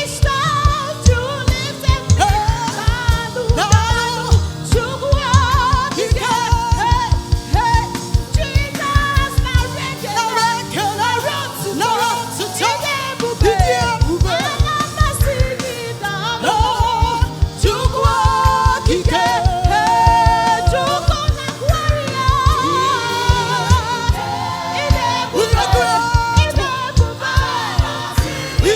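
Church choir singing a gospel song with a live band, over a steady drum beat that drops out for a couple of seconds about ten seconds in and then comes back.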